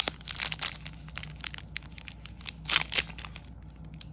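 Crinkling and tearing of a foil trading-card pack wrapper, in quick irregular crackles that stop near the end.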